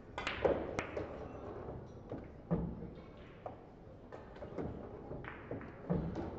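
Scattered short knocks and taps of pool balls being handled and clicking together, a cluster in the first second and then single ones every second or so, over the low hum of a large hall.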